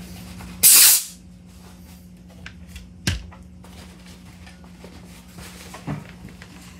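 A short, loud blast of compressed air as the high-pressure fill line is bled after topping up the airgun's air bottle, then a single sharp click a couple of seconds later as the fill probe comes off.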